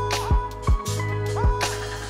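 Background music: a steady bass line with a deep drum beat and held notes that slide up in pitch as they start.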